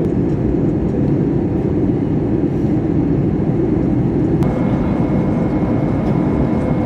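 Airliner cabin noise during descent: a steady, loud rumble of jet engines and airflow. A steady high whine joins about four seconds in.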